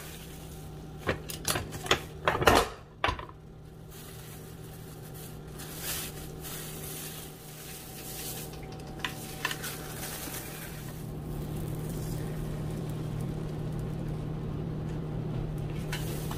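Plastic tortilla press being handled to flatten a ball of masa between plastic sheets: a quick run of clicks, knocks and crinkling plastic in the first few seconds. Then a steady low hum from the kitchen that gets a little louder about two-thirds of the way through, with a few light ticks.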